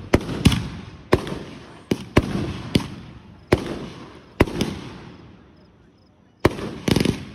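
Fireworks going off: a string of sharp bangs, each followed by a fading echo. A lull of about a second is followed by a quick cluster of bangs near the end.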